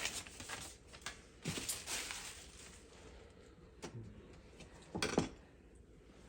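Light handling noises: a few scattered small knocks and clicks of things being picked up and set down, the loudest about five seconds in.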